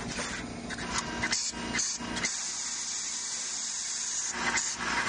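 SMT assembly machinery with a stacked tube feeder running, a mechanical noise with a steady high hiss for about two seconds in the middle and a burst of broader machine noise near the end.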